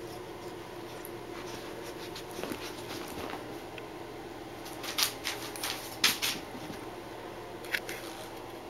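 A few short rustles and crinkles, the loudest about five and six seconds in and one more near the end, over a steady hum: a beagle puppy scrambling among loose sheets of paper on a carpet.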